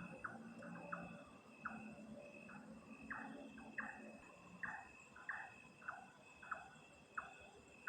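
A night-calling creature gives a steady run of short chirps, each falling in pitch, about one and a half a second. Under it runs a constant high insect-like drone and a faint low city hum.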